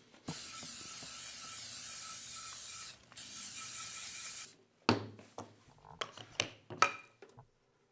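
Aerosol cooking spray hissing into a small non-stick frying pan in two long sprays with a short break about three seconds in. Then several sharp knocks and clicks as the can is set down on the table and utensils are handled, the loudest about five seconds in and again near the end.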